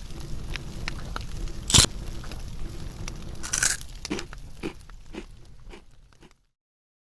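Crunchy biting and chewing: a loud crunch about two seconds in and another about three and a half seconds in, with small crackling clicks between, thinning out and cutting off abruptly near the end.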